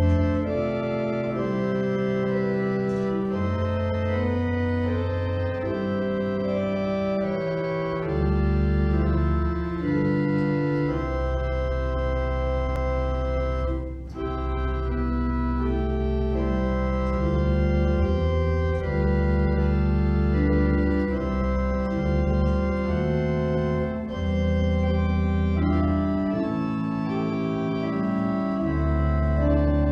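Organ playing slow, held chords over deep sustained bass notes, the chords changing every few seconds with brief breaks between phrases.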